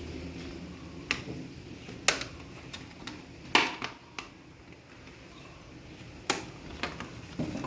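Irregular sharp clicks and light knocks of hard objects being handled, about nine in all, with the loudest about three and a half seconds in.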